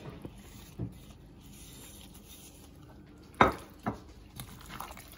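Gloved hands mixing raw meat chunks with chopped onion and marinade in a glass bowl: soft squishing and rubbing, with two sharp knocks about half a second apart a little past three seconds in.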